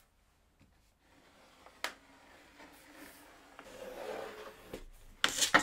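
Pencil drawing a line on plywood along an aluminium guide rail used as a straightedge: a faint scratching that builds over a few seconds, with a sharp click about two seconds in. Near the end come a few louder sharp knocks and scrapes.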